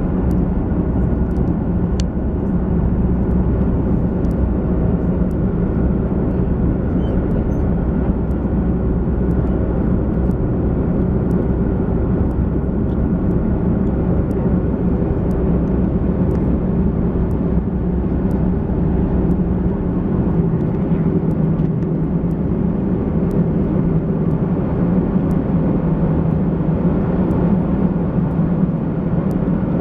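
Airbus A330's Rolls-Royce Trent 700 turbofans and airflow heard inside the cabin during climb-out: a loud, steady drone with a low hum. The deepest rumble drops away about two-thirds of the way through.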